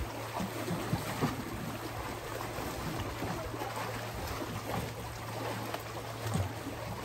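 Lake water lapping and trickling against the rock, with small splashes and a faint steady low hum underneath.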